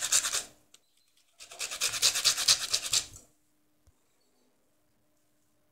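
Orange peel grated on a fine rasp grater: quick, even scraping strokes in two spells, the first stopping about half a second in, the second from about a second and a half to three seconds in. A faint tap near four seconds.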